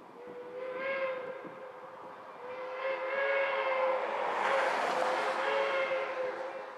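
Steam locomotive Polson #70's Ashton 6-inch three-chime whistle blowing a short blast and then a long one, a steady chord, with a hiss of steam at its loudest.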